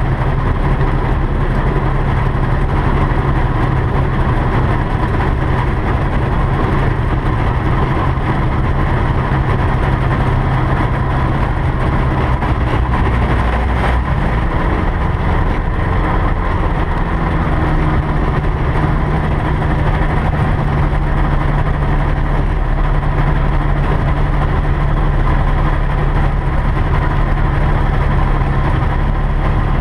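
Single-engine light aircraft's engine and propeller running steadily at low taxi power, heard from inside the cockpit. The engine note rises slightly about halfway through.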